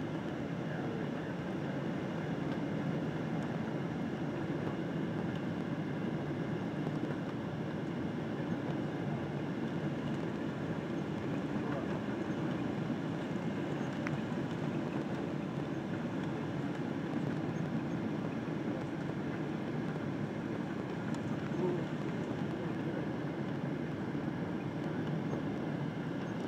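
Steady cabin noise inside a Boeing 777-200 on approach with flaps extended: an even rumble of engines and airflow through the fuselage, with faint steady tones above it.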